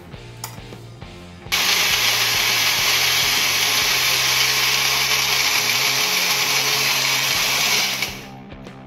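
Small Food Food personal blender switched on, blending yogurt, pineapple pieces and ice cubes into lassi: it starts suddenly about a second and a half in, runs loud and steady for about six seconds, then winds down near the end.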